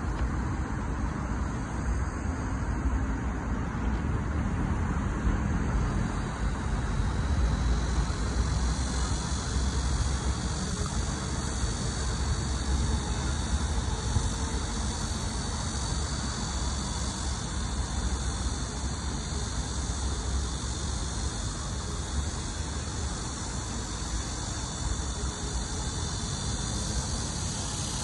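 Cicada singing, a steady high buzz that grows fuller about eight seconds in, over a continuous low rumble, louder than the buzz, from road traffic.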